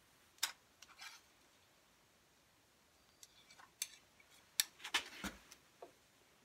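Scattered light clicks and taps of small objects being handled while oil is put into a diesel generator, about a dozen of them, with quiet gaps between and most coming in the second half.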